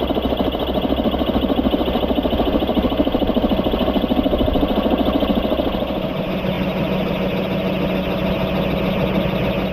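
Rotor of a radio-controlled scale Bell 212 helicopter model in flight, slowed to 30% speed, so the main rotor's rapid blade beat becomes a steady chopping like a full-size helicopter's. It gets a little quieter about six seconds in.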